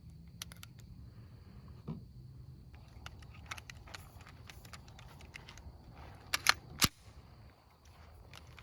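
A series of sharp mechanical clicks and light knocks, with two loudest clicks close together a little over six seconds in, over a faint steady high-pitched tone.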